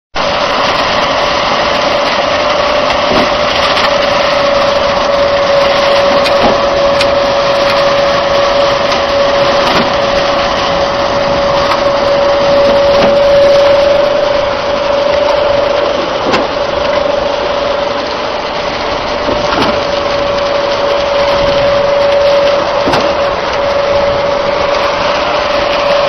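Diesel concrete mixer pump running steadily with a high, even whine. A faint knock comes about every three seconds.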